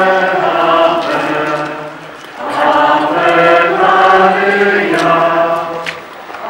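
Procession singing a religious hymn in unison, held notes moving from pitch to pitch in phrases, with a brief pause about two seconds in and another near the end.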